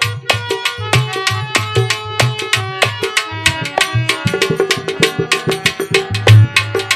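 Instrumental interlude of a nirgun bhajan: an Indian hand drum played in a fast, steady rhythm with deep bass strokes, under sustained melody notes.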